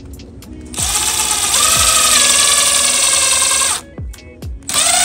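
Cordless power drill running under load as it bores a screw hole through an acrylic plant tag into a wooden board: a steady motor whine lasting about three seconds that rises in pitch partway through, then a second, shorter run near the end. Background music plays underneath.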